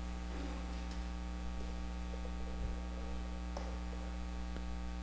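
Steady electrical mains hum, with three faint clicks.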